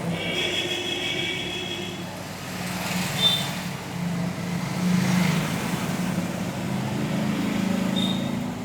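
Hot-air rework blower running steadily, a fan hum under a rush of air, heating solder paste to desolder the old battery-connector pins. A few short high-pitched tones sound over it.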